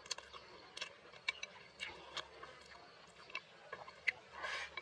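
Close-miked eating: irregular wet mouth clicks and chewing. Near the end comes a longer rustling swell as food is pushed from the bowl's rim into the mouth with chopsticks.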